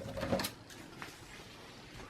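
A few light clicks and taps of parts being handled during a desktop PC teardown, grouped around half a second in, with one more click about a second in.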